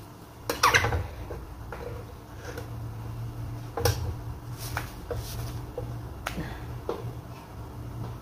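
The metal lid of an electric hinged press clatters about a second in, followed by scattered light clicks and knocks as the press is handled and dough pieces are set on its plate, over a steady low hum.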